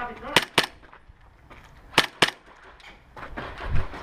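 Airsoft guns firing single shots, four sharp snaps in two pairs about a second and a half apart.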